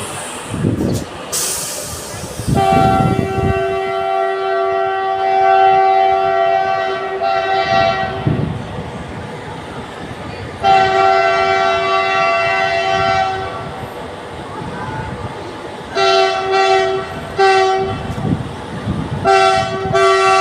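Railway locomotive horn sounding: two long blasts, then three short blasts near the end, over a low rumble.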